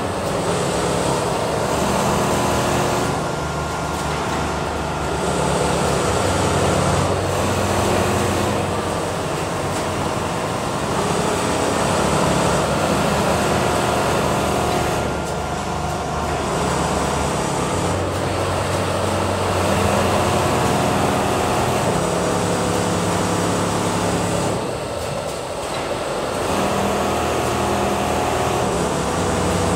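Automatic template sewing machines running on a garment-factory floor: a steady mechanical hum made of several held tones that step up and down in pitch every few seconds.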